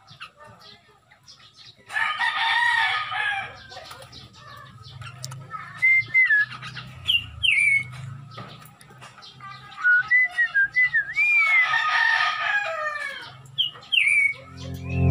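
A rooster crows twice, about two seconds in and again about eleven seconds in. Between and after the crows come short whistled bird chirps that rise and fall, over a low steady hum.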